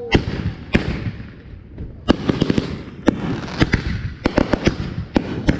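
Fireworks going off: an irregular run of sharp bangs, some in quick clusters of two or three. A short falling whistle sounds at the very start.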